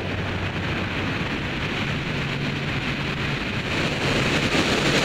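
Wind rushing past a wingsuit flyer in flight, a loud, even roar of air that grows louder over the last second.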